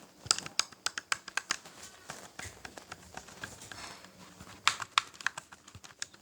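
Buttons of a game controller clicked rapidly and at random: a quick irregular run of small plastic clicks, thinning out in the middle and picking up again near the end.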